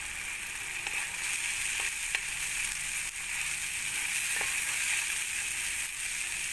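Cashew paste and ginger paste frying in ghee in a stainless steel pan: a steady sizzle while a wooden spatula stirs it.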